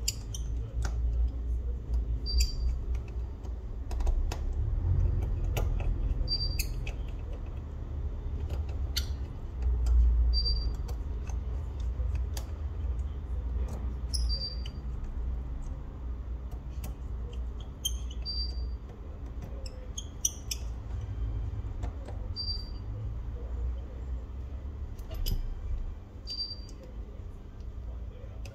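Small clicks and taps of tools and phone parts being handled on a work surface, over a low rumble of handling. A short high chirp repeats about every four seconds.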